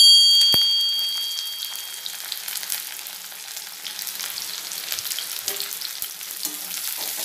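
Sliced onions sizzling and crackling in hot oil in a steel kadai, with a ladle stirring them near the end. Right at the start a bright bell chime rings out, the loudest thing here, and fades away over about two seconds.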